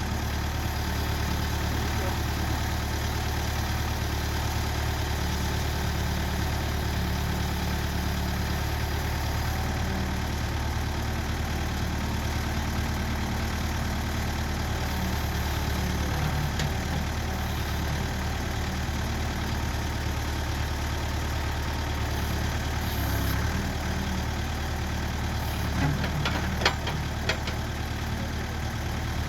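Backhoe engine running steadily at idle, with a few sharp clicks or knocks near the end.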